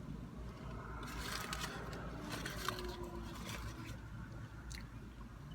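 Crackly rustling and crunching of takeout food and its packaging being handled and eaten, most of it from about one to four seconds in, over a low steady rumble.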